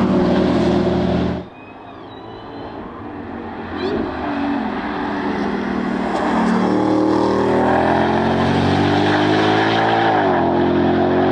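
Ford Mustang GTD's supercharged 5.2-litre V8 at full throttle on track. The engine note breaks off suddenly about a second and a half in. It then returns, growing steadily louder as the car approaches, and runs loud with the engine pitch climbing, broken by one quick dip near the end like a gearshift.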